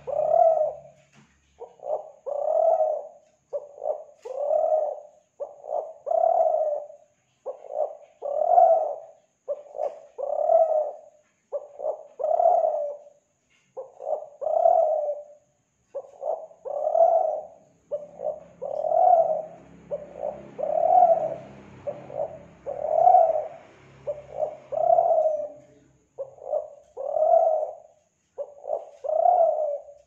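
Spotted dove of the Kelantan song type cooing over and over, a short low phrase about every two seconds.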